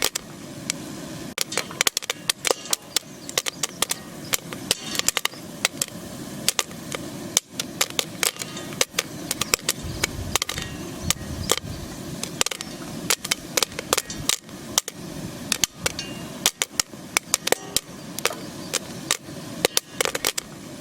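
Popcorn kernels popping in a metal skillet on the stovetop: many sharp, irregular pops, several a second, with kernels bouncing off the pan.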